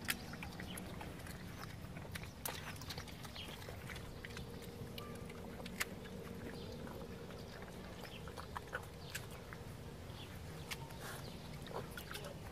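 Short animal calls and scattered sharp clicks and knocks over a steady low background hum.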